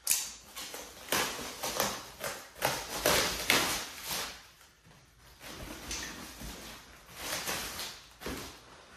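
Clear plastic stretch wrap being cut and pulled off, crinkling and rustling in irregular bursts, loudest about three seconds in.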